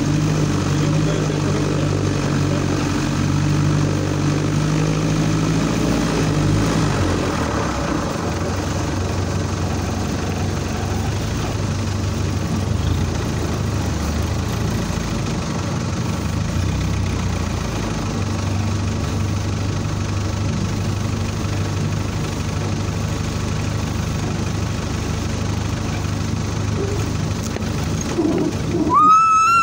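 Off-road vehicle's engine running steadily as it drives slowly over a rough forest dirt track, its pitch stepping down about seven seconds in and then holding. Near the end a brief, loud rising tone cuts in.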